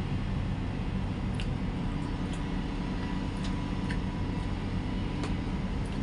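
Steady low hum, with about half a dozen faint, sharp clicks scattered through it from eating by hand out of a plastic food container.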